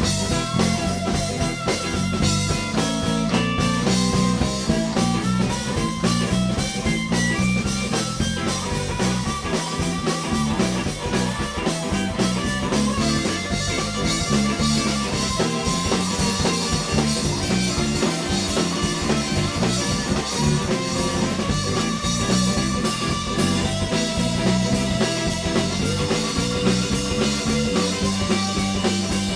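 Live blues band playing an instrumental passage with electric guitar, bass, drum kit and a harmonica blown through the vocal microphone.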